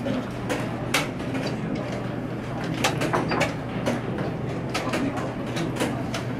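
Chess tournament hall: irregular sharp clicks and knocks of wooden chess pieces and clock buttons at the boards, over a steady low hum and a faint murmur of voices.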